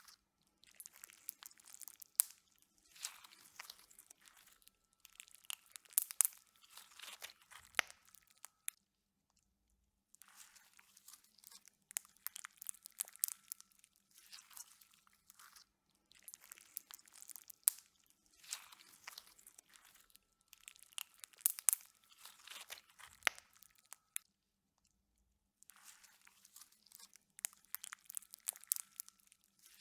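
Slime being squeezed and kneaded by hand, a stream of sticky crackles and small pops in runs of several seconds, with two short pauses.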